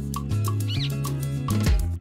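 Background music with a steady beat and bass line. A short high chirp glides up and down about a third of the way in.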